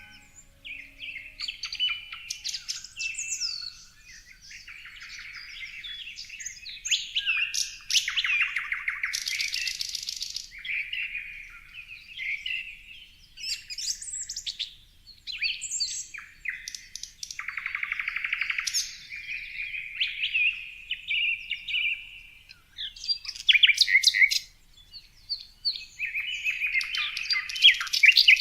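Songbirds singing: a continuous run of varied chirps, whistled phrases and fast trills.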